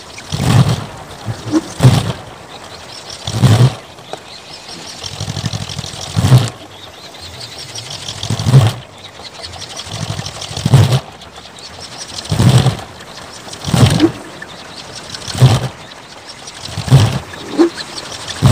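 A kolecer, a wind-driven propeller with a blade about 4 m across on a tall pole, spinning in the wind: each sweep of the blade gives a deep whooshing boom, the thunder-like sound it is built for, about one every one and a half to two seconds over a steady rush of wind.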